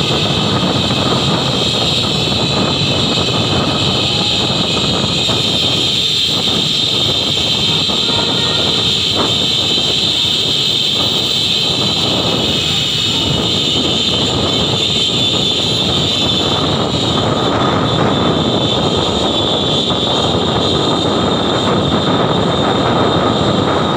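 Steady noise of moving city traffic, mostly motorbike and car engines and tyres, heard from a moving car.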